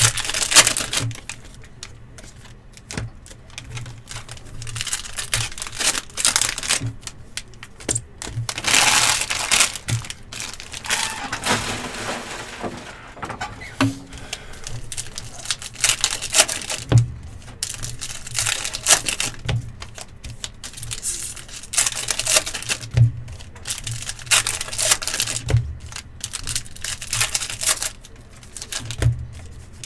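Trading card packs being torn open and handled: wrappers crinkling and ripping, with irregular clicks and taps of cards being flipped and set down. A longer stretch of crinkling comes about nine seconds in.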